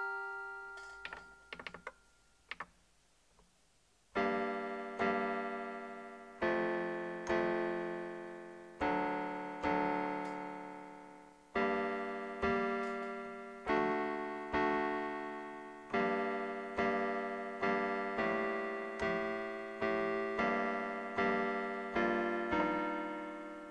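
Yamaha PSS-A50 mini keyboard playing a series of chords, each struck sharply and fading, about one every 0.8 seconds. Before that comes a short pause: a held chord dies away, a few brief clicks follow, and the chords begin about four seconds in.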